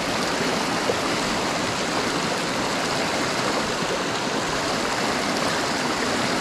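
Steady rushing of a rocky river at the foot of a waterfall, an even wash of water noise with no pauses.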